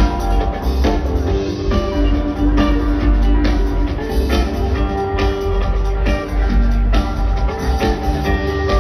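Live band playing loudly through a large PA system, with a drum kit, electric guitar and keyboards over a heavy bass line.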